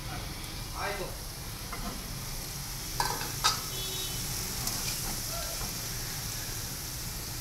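Vegetables frying in oil in a metal pan, a steady sizzle, while a metal slotted spatula stirs and scrapes through them. Two sharp clinks of the spatula against the pan come about three seconds in.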